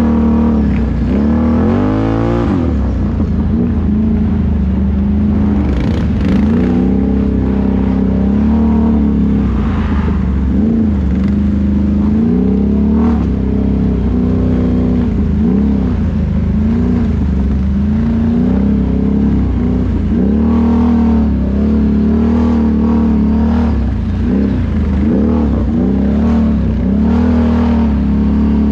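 ATV engine revving up and down again and again, the pitch rising and falling every second or two.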